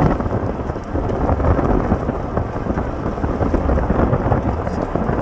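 Loud, steady rumbling storm noise from strong wind around a tornado.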